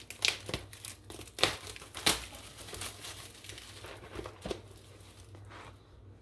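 Plastic wrap around a three-pack of Velveeta mac and cheese being crinkled and torn open, a string of irregular crackles.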